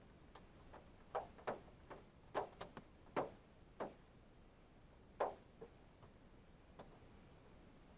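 Scattered raindrops tapping on a parked car's roof and windshield, heard from inside the car: irregular single taps, a dozen or so, over a faint steady hiss.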